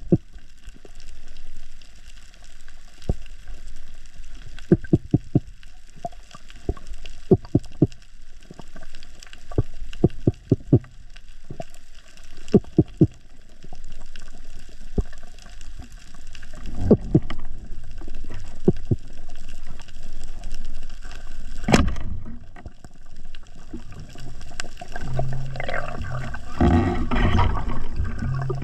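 Underwater sound heard through an action camera's housing while freediving over a reef: groups of quick low clicks every couple of seconds, one sharper click a little past the middle, then a rushing, bubbling water noise building over the last few seconds.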